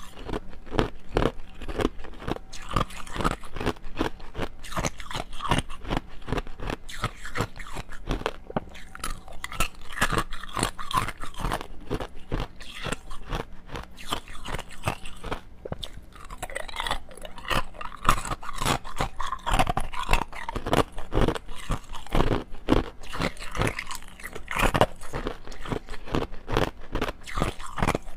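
Clear ice cubes bitten and chewed, a continuous run of sharp, irregular crunches, picked up close by a clip-on lavalier microphone.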